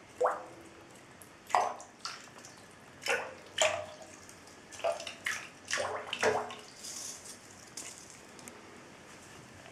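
Water splashing and plopping in a bathtub as a small PVC fishing lure is pulled through it: about ten short plops, some falling in pitch, in the first six or seven seconds, then a few fainter ones.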